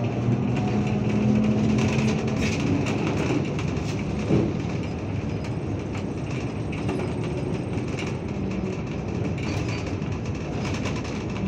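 Trolleybus ride heard from inside the passenger cabin: a steady hum from the electric drive over road rumble and body rattle. The hum fades after about three seconds, and there is a single thump about four seconds in.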